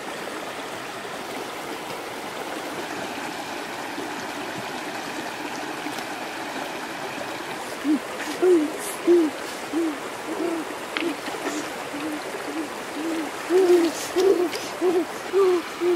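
Shallow river running over rocks, a steady rush. About halfway in, a bird starts a series of low hooting notes, about two a second, louder than the water.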